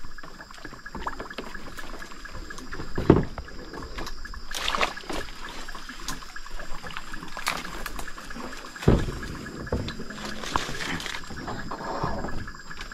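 Kayak on the water: paddle dips and splashes with irregular knocks, one every second or two.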